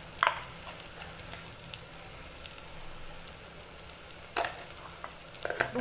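Steady sizzle of onions frying in oil over a high flame, with a spoon clicking against the salt tub and plate a few times: sharply just after the start, again about four and a half seconds in, and near the end.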